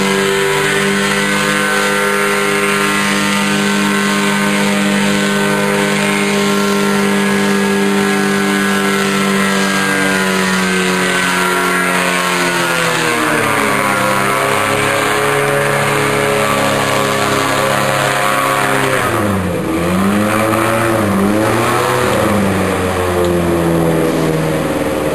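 Airboat engine and propeller running loud and steady, then throttling down about halfway through, with a few quick dips and rises in engine pitch near the end.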